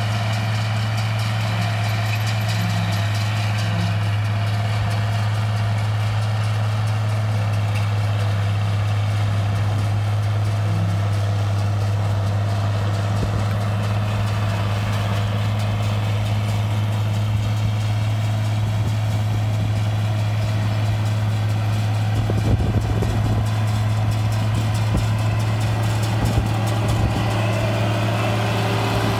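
International 1256 tractor's six-cylinder diesel engine running steadily under load while it drives a New Holland 790 forage chopper picking up and chopping windrowed hay, a constant low mechanical hum.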